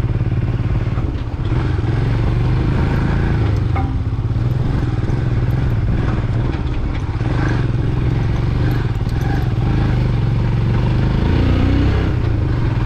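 Motorcycle engine running steadily with a low, even hum, as heard while riding.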